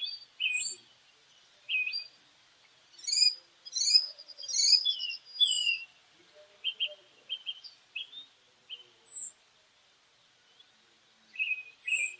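Small birds chirping: scattered short chirps and whistled notes, several sliding down in pitch, with a couple of quick trills in the first half.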